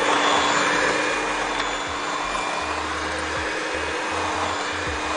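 Handheld electric mixer running at a steady speed, its beaters creaming soft butter and sugar in a glass bowl; a steady motor whine.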